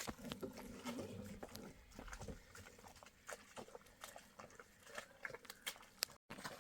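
Faint animal sounds: scattered clicks and taps, with a low call in the first second or so. The sound cuts out briefly near the end.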